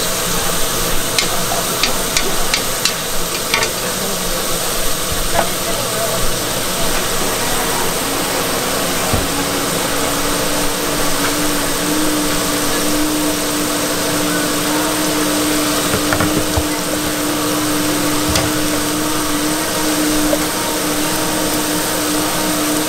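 Food sizzling and being stir-fried on a hot griddle, a steady frying hiss with a few sharp clicks near the start. A steady hum comes in about nine seconds in.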